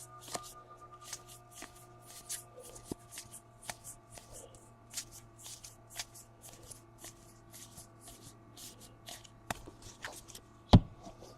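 Baseball trading cards being flipped through one at a time, a soft swish of card sliding off card about three times a second. A single sharper knock near the end.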